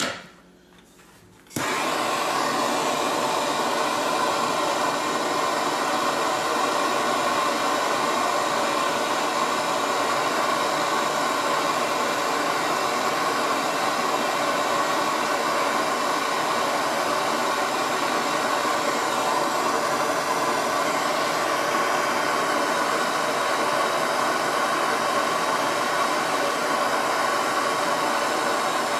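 Handheld gas torch burning with a steady hiss, starting suddenly about a second and a half in. It is heating the factory-Loctited bolts of a Cummins ISX VGT turbo air actuator to free them.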